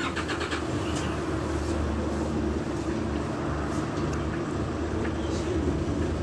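Steady low rumble of street traffic, with a few light clicks in the first half-second.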